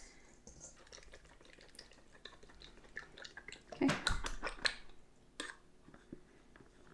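Faint crumbly rustling and small clicks of pastry-making: hands working butter and flour in a stainless steel bowl, then a fork clinking and scraping as beaten egg is tipped into the bowl. A short cluster of louder clicks and scrapes comes about four seconds in.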